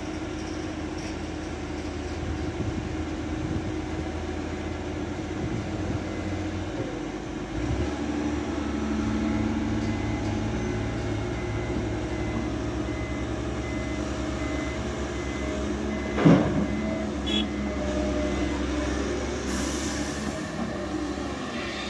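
Caterpillar 320 hydraulic excavator's diesel engine running steadily under load while working. Its low engine note shifts about eight seconds in, and a single sharp clank stands out about sixteen seconds in.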